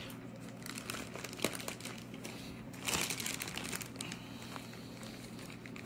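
Plastic coral bag crinkling and rustling as it is handled, in irregular crackles with a louder burst of crinkling about three seconds in.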